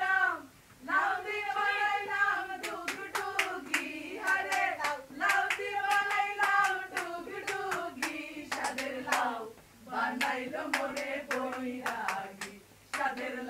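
A group of people singing together, with hand-clapping in time joining in a couple of seconds in and carrying on under the song.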